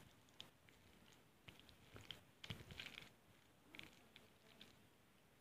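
Faint chewing of a mouthful of fried noodles, with soft, wet mouth clicks and smacks scattered unevenly through.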